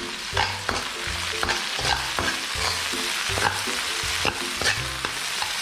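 Garlic, ginger and dried chillies sizzling in hot oil while a spatula stir-fries them, with sharp clicks of the spatula against the pan about two or three times a second. This is the aromatics being fried to release their fragrance.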